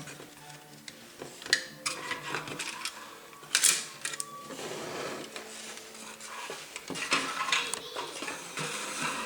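Plastic laptop parts being handled during disassembly: scattered clicks, knocks and rattles, with two sharper knocks about one and a half and three and a half seconds in, then denser rustling and clicking.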